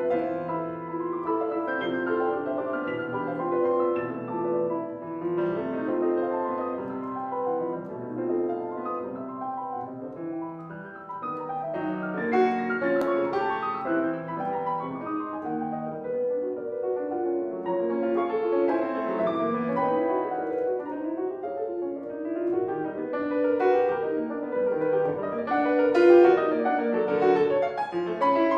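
Solo piano playing a dense stream of notes, swelling louder about halfway through and again near the end.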